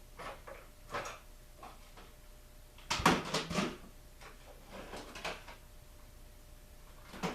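Tools and hardware clattering and knocking as someone rummages for a clamp, with a loud burst of rattling about three seconds in and scattered single knocks before and after.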